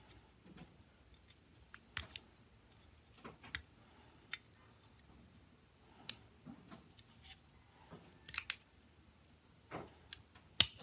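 Steel tweezers clicking and scraping against the plastic housing of a Nokia C2-01 phone as small parts are picked out: scattered sharp clicks at irregular times, the loudest near the end.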